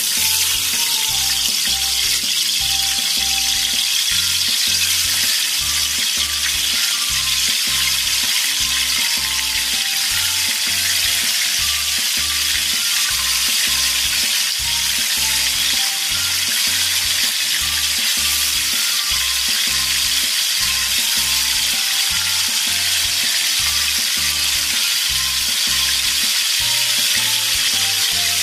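Hot oil sizzling steadily as pieces of marinated chicken deep-fry in a steel karahi. A background music track with a steady beat plays underneath.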